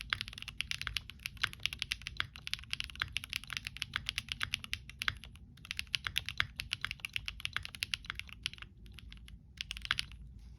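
Fast typing on a Monsgeek M1 mechanical keyboard with lubed and filmed Gateron Modern Grey switches and foam in the case and under the PCB: a quick, steady run of key clacks. The typing breaks off briefly about halfway and again near the end, then stops.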